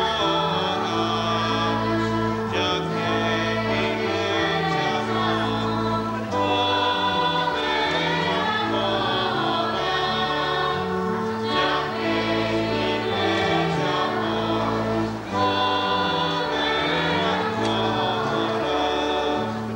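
Choral music: a choir singing held notes over an instrumental accompaniment, with a bass part that steps from note to note.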